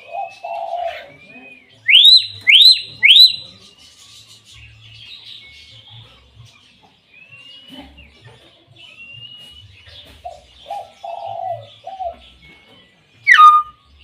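Common hill myna calling: three loud rising whistles in quick succession about two seconds in, low throaty notes at the start and again around ten to twelve seconds, and one sharp falling call near the end.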